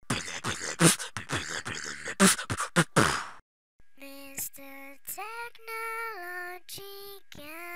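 Intro music with no speech. It opens with a fast run of beatbox-like percussive hits, stops briefly about three and a half seconds in, then moves to a series of held, voice-like notes that step from one pitch to another.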